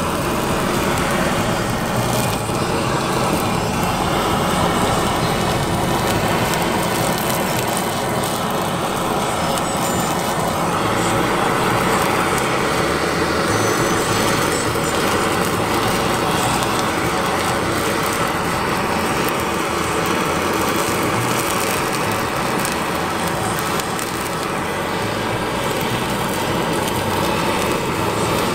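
Steady roadside traffic noise, motor vehicles running past without a break.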